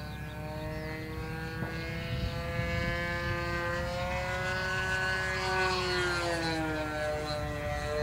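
OS MAX 46 AX two-stroke glow engine and propeller of a model aerobatic plane running in flight. Its pitch climbs gradually to a peak about five seconds in, then drops near the end.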